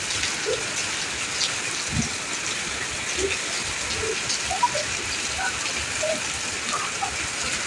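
Heavy rain falling steadily on a wet concrete rooftop, an even hiss of drops with small scattered splashes.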